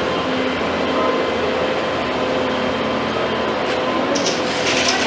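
Komatsu PC210 hydraulic excavator running steadily, its diesel engine and hydraulics giving a constant hum with a faint steady whine. A short burst of scraping and clattering comes about four seconds in.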